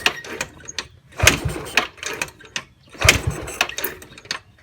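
Yamaha Mio Sporty scooter being kick-started twice, each kick turning the engine over briefly without it catching. It is a hard start on an engine left standing for weeks, with the open carburetor's intake covered to choke it.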